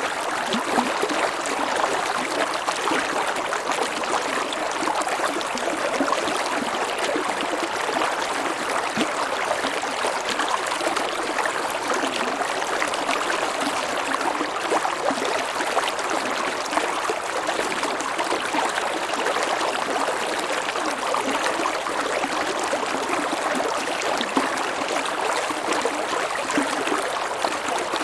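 River water flowing steadily over a gentle waterfall: a continuous rushing, splashing babble.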